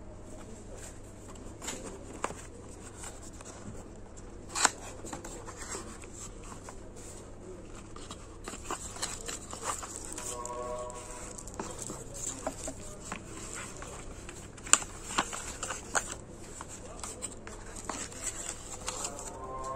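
Hands handling a cardboard box and the plastic wrapping inside it: scattered taps, clicks and rustling. There is a sharp click about four and a half seconds in and another near fifteen seconds.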